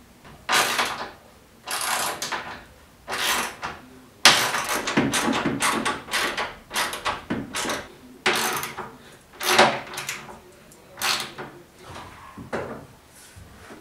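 A run of short scrapes and rubs of wood and metal, roughly one a second with a longer stretch about four to six seconds in, from hand work on a wooden workbench as the table saw's base is bolted down.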